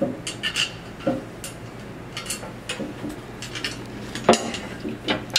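Light metallic clinks and taps as a stainless steel table-tennis net panel is handled and set onto its metal mounting brackets, with one sharper knock about four seconds in.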